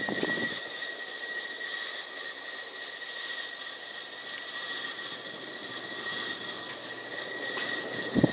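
1986 Casablanca Delta II ceiling fan running on high, giving a steady high whine over an even whir. This is the noise of its worn motor bearings, which need replacing.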